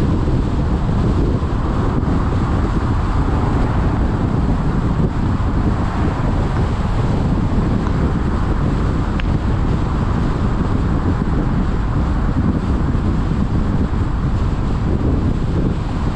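Steady road and wind noise from a car driving along, a heavy low rumble with wind on the microphone. A single faint tick about nine seconds in.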